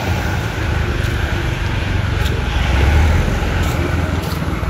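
Street traffic: a low rumble of road vehicles that swells to its loudest about three seconds in and then fades, like a car passing.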